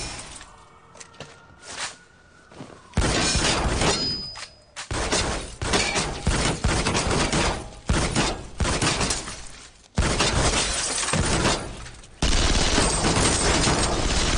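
A gunfight with rapid gunfire; bullets strike a car's body and break its glass. After a quieter first three seconds, the shots come in dense loud runs with short lulls between them.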